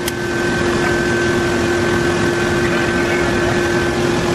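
Steady drone of nearby running machinery, with a constant hum in it. A single sharp click comes right at the start.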